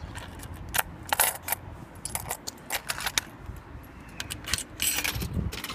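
10-yen coins clinking, handled one-handed and fed one at a time into a vending machine's coin slot: a string of irregular short clinks and clicks.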